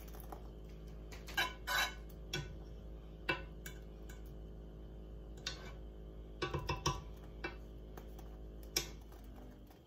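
A utensil clicks and scrapes against a skillet as butter and minced garlic are stirred around, in scattered short knocks with a quick cluster about two-thirds of the way in. Under them runs a steady low hum.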